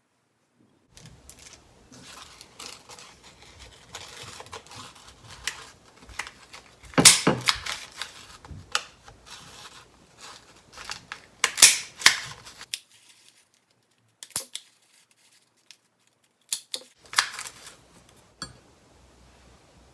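Small food cutters cutting shapes out of nori seaweed and sliced cheese: crinkling and crackling handling with many sharp clicks, the loudest about 7 and 12 seconds in.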